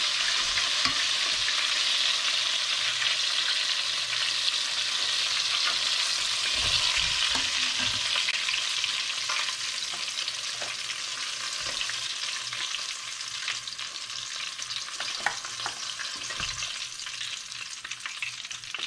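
Hot oil sizzling in a stainless steel pot of deep-fried chicken pieces, with a few light clicks as metal tongs lift the pieces out. The sizzle slowly dies down, the burner having just been turned off.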